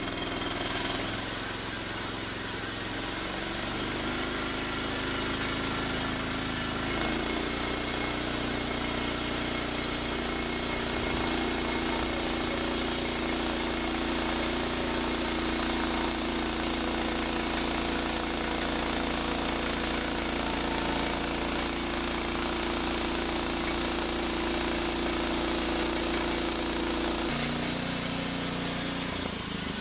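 Norwood LM29 portable bandsaw sawmill running steadily, its engine driving the band blade. Its tone shifts about seven seconds in and again near the end.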